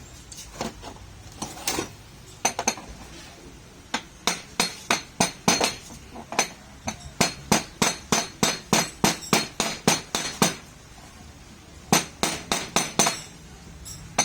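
Hammer blows on metal, each with a short ring. A few scattered taps come first, then a steady run of about three blows a second, a short pause, and a few more quick blows near the end.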